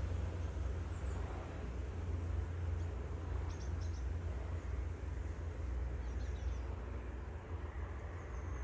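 Outdoor ambience: a steady low rumble under an even hiss, with a few faint short bird chirps about three and a half and six seconds in.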